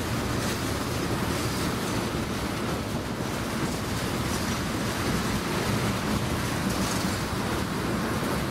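Train passing close by, the cars rolling along the rails with a steady rumble and rush of wheel noise and faint clicks now and then.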